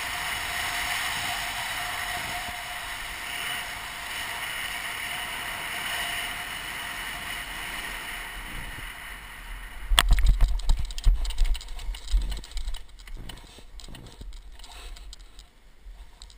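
Steady rush of air past the paraglider and the microphone during the final glide. About ten seconds in, a sharp knock and loud low rumbling of wind on the microphone as the pilot touches down, followed by quieter uneven footfalls and rustling in dry grass.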